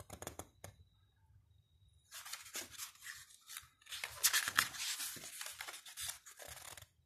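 Glossy photo-book pages being turned and rubbed by hand, paper rustling and sliding. It opens with a few light handling clicks, goes quiet for about a second, then rustles again and is loudest about four seconds in as a page is flipped.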